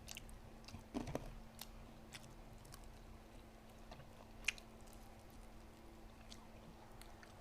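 A person eating McDonald's food close to the microphone: faint chewing and biting with scattered small crunches and clicks, over a steady low hum.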